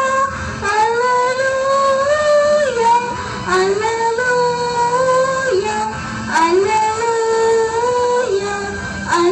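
A single high voice singing a slow melody in long held notes, gliding and stepping between pitches.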